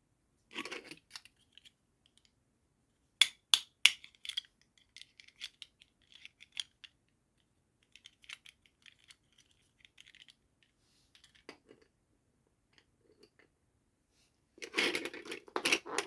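Unboxing a toy doll set: sharp plastic clicks and snaps with light packaging rustles, a few loud clicks in quick succession a few seconds in, and a longer burst of crinkling handling near the end.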